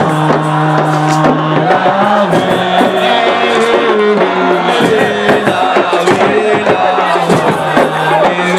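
Loud music with fast drumming and a melody of held and moving pitched notes.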